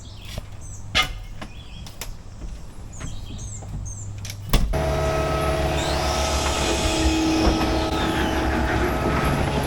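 Vehicle engine running: a quiet low hum with a few clicks, then an abrupt change about halfway through to a louder engine with a steady whine.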